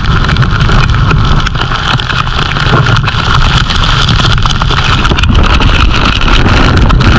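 Squall-force wind buffeting the camera microphone: a loud, steady low rumble under a rushing hiss, scattered with many small sharp hits.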